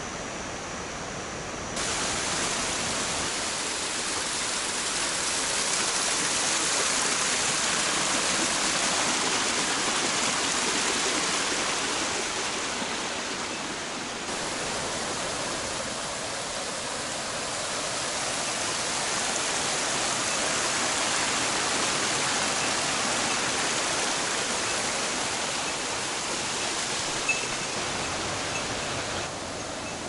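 Mountain stream rushing over rocks: a steady wash of flowing water that steps up abruptly in level about two seconds in and changes again about halfway through.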